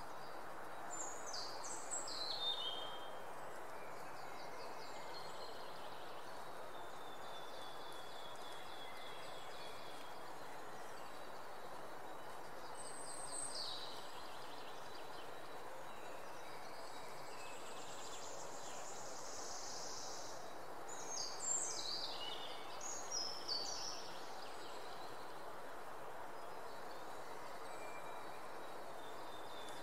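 Outdoor ambience: a steady background hiss with songbirds singing short, high, partly falling phrases about a second in, around thirteen seconds in, and again between about eighteen and twenty-four seconds.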